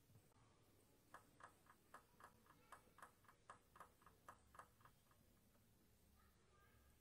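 Table tennis ball bounced repeatedly on the table before a serve: about fourteen light ticks, roughly four a second, starting about a second in and stopping near the five-second mark.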